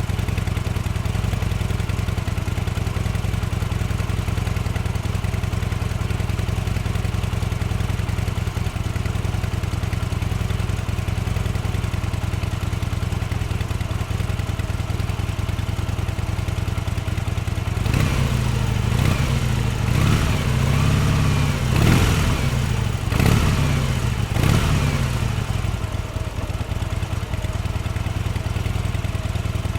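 Harley-Davidson V-twin motorcycle engine idling steadily, then blipped several times from about two-thirds of the way in, the pitch rising and falling with each rev before it settles back to idle.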